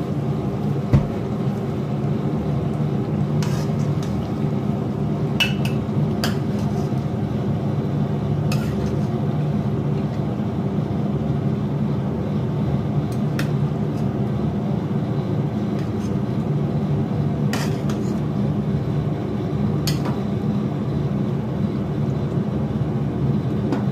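A metal spoon clinking and scraping against a steel karahi pan and plate as thick meat curry is dished out, a few sharp clinks spread far apart, over a steady low hum.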